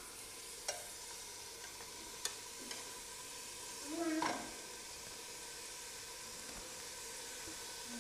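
Raw mutton pieces sizzling in hot masala in a pressure cooker, with a few light clicks of a steel spoon against the pot. A brief voice comes in about four seconds in.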